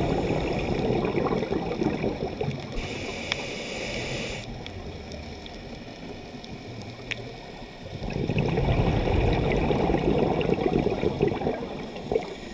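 Scuba regulator breathing underwater: exhaled bubbles gurgling and rushing, a short hiss of an inhale about three seconds in, a quieter stretch, then another long run of exhaled bubbles from about eight seconds in.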